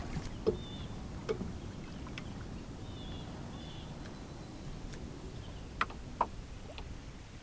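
Kayak on choppy lake water: a steady low wash of water against the hull, with a few short light taps and splashes, the two sharpest near the end.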